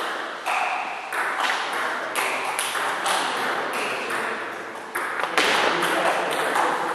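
Celluloid table tennis balls clicking sharply off the table and the rubber-faced bats, a hit about every half second during a rally, over a steady hall background.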